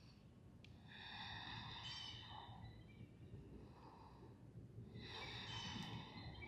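Faint bird calls: two drawn-out, pitched calls, one about a second in and one near the end, over a low steady hum.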